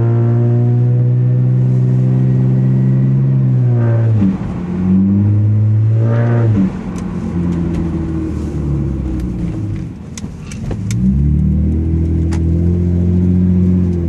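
A 7th-gen Honda Accord's 3.0 L V6 through an OBX cat-back exhaust with resonator and muffler deleted, heard from inside the cabin while driving. The engine note holds steady for about four seconds, drops and rises twice as the revs change, and climbs again to hold near the end. A few sharp clicks fall around the middle.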